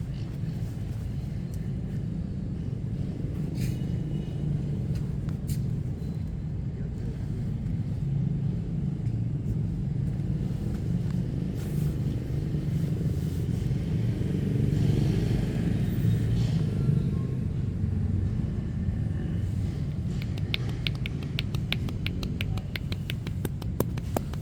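Steady low rumble of street traffic, swelling a little midway. Near the end comes a quick run of sharp taps, several a second.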